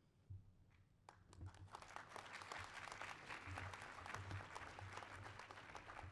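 Audience applauding faintly, starting about a second in.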